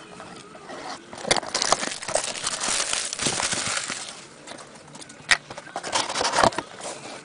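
A sealed box of trading cards being torn open by hand: wrapping and cardboard ripping and crinkling for a couple of seconds, then a few sharp snaps.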